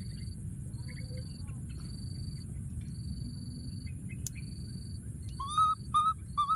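A baby monkey gives three short, rising squeaky calls in quick succession near the end, over a steady low rumble. A faint high pulsed tone repeats about once a second.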